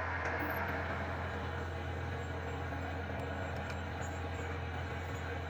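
Honda CD 100 motorcycle engine running steadily.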